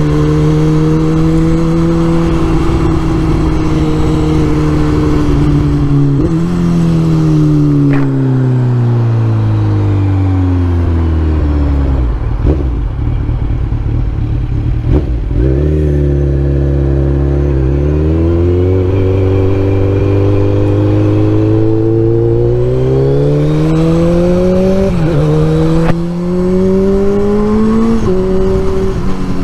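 A 2004 Kawasaki Z1000's inline-four engine running while the motorcycle is ridden. The engine note falls as the bike slows about a third of the way in and stays low for a few seconds. It then climbs steadily under acceleration, dropping suddenly twice near the end at upshifts.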